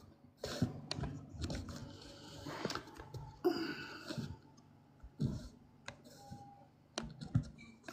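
Irregular, fairly quiet taps and clicks, like typing, at a few per second, with a few faint bits of voice in between.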